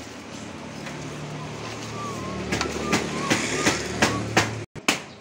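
Repeated sharp knocks, about three a second, starting about halfway in and getting louder, over a steady low machine hum.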